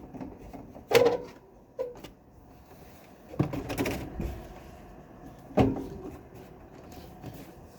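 Knocks and clatters of a window air conditioner's side panels being worked loose by hand: a sharp knock about a second in, a short rattle around three and a half seconds, and another knock near six seconds.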